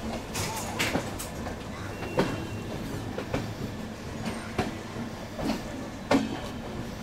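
Passenger train coaches rolling slowly into a station, with steady running noise and irregular clacks as the wheels pass over rail joints and points.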